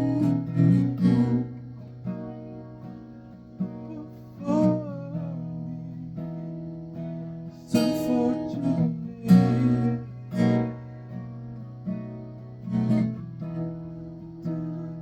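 Acoustic guitar being strummed: chords left to ring, with sharp strums every one to three seconds.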